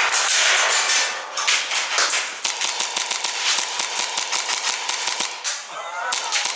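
Airsoft gunfire: a rush of noise in the first second, then many sharp shots cracking in quick, irregular succession.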